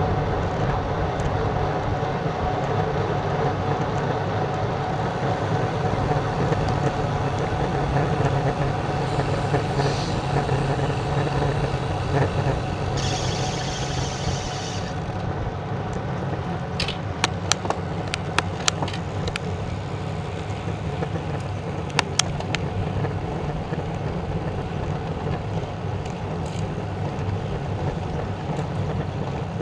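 Wind rush and tyre noise on the microphone of a camera mounted on a road bike ridden at about 12–20 mph. About halfway through, while the rider coasts, a high buzz runs for a couple of seconds, typical of a freewheel ratchet. A few sharp clicks come a little later.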